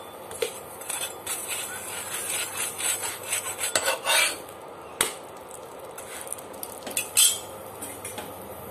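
Flat spatula scraping and tapping on a nonstick tawa while ghee is spread over a stuffed paratha and the paratha is turned, with a sharp tap about five seconds in and the loudest knock a couple of seconds later.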